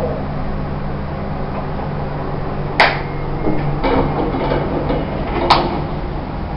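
Fujitec elevator arriving and opening: a sharp click about three seconds in, then the doors sliding open, ending in a second click, over a steady low hum.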